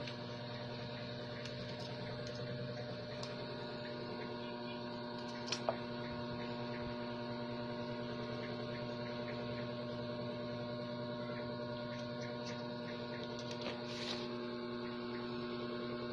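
Steady electrical hum made of several steady tones, with a faint click about five and a half seconds in.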